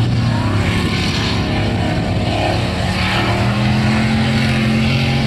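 V8-engined Toyota Corolla doing a burnout: the engine is held at steady, high revs over the hiss of spinning, smoking tyres.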